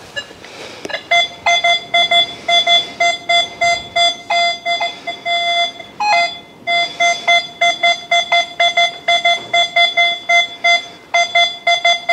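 Nokta Makro Legend metal detector giving a repeated mid-pitched target tone, about three beeps a second with a short break near the middle, as its coil passes over a gold Queen Victoria half sovereign. It reads target ID 29 to 30 with full bars to the right, a signal that means dig it.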